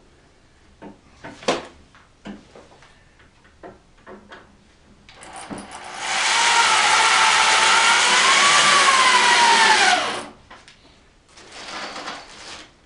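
A few light knocks and clicks of wood being handled, then a power drill runs for about five seconds, its whine sagging in pitch just before it stops, followed by a second shorter run near the end.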